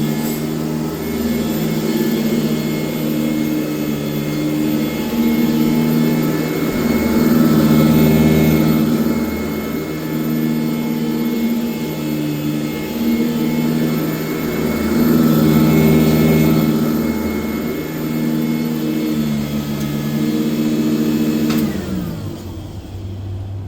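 1996 Sanitaire S663 Type A upright vacuum cleaner running, its motor note shifting up and down every second or two as it is pushed back and forth. Near the end it is switched off and the motor spins down, its pitch falling away.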